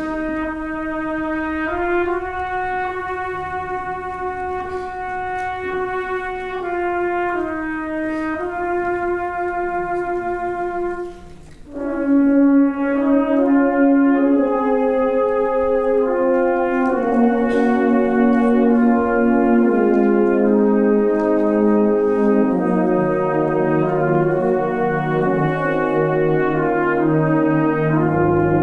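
Brass band of cornets, horns, euphoniums, trombones and tubas playing slow held chords. The sound drops briefly about eleven seconds in, then the full band comes in louder, with a lower bass line joining later.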